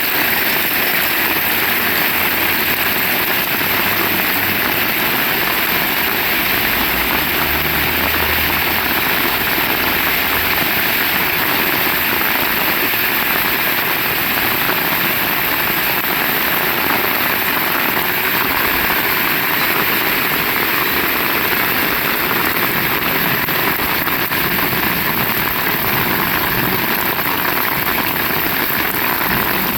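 Heavy rain falling steadily, an even hiss of rain on surfaces, with a faint low rumble a few seconds in.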